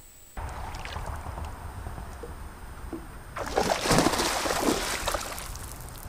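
A large hooked fish, a musky, splashing and thrashing at the surface beside the boat as it is netted. The loudest stretch of splashing starts a little after halfway and lasts about two seconds, over a steady low rumble.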